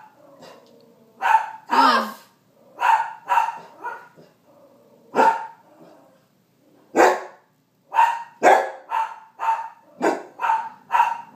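Bernedoodle puppy barking, about a dozen short barks in quick runs, with a brief pause near the middle.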